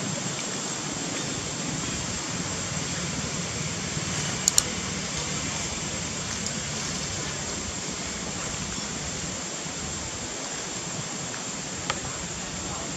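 Steady rushing background noise, broken by two sharp clicks about four and a half seconds in and another near the end.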